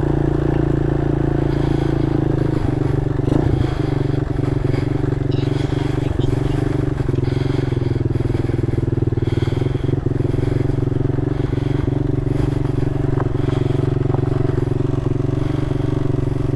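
Mini motorcycle's small single-cylinder engine running steadily at low speed on rough ground, with a few light knocks and rattles.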